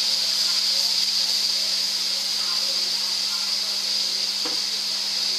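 Mushrooms and vegetables frying in a pan, sizzling steadily, with a low steady hum underneath and one short click about four and a half seconds in.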